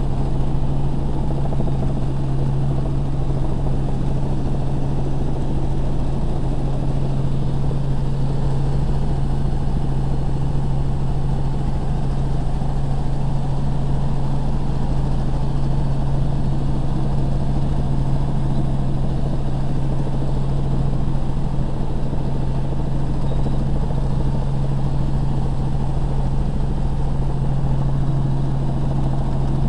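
Helicopter in steady cruising flight, heard from inside the cabin: a loud, even drone with a strong low hum over a dense rush of rotor and engine noise.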